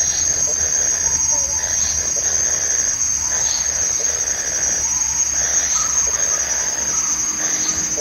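A steady, high-pitched insect drone from crickets or cicadas, with faint short chirps every second or two.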